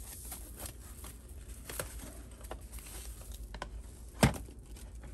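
Hard plastic graded-card slabs being handled and pulled from their wrapping: scattered soft clicks and rustles, with one sharper click about four seconds in.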